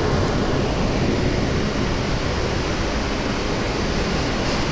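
Steady rushing rumble of an R160 subway car running along the track, heard from inside the car.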